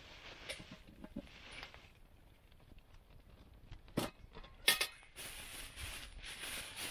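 Two sharp metallic clanks, about four and five seconds in, as a camping pot is handled and set down by its wire handle. A plastic bag then rustles.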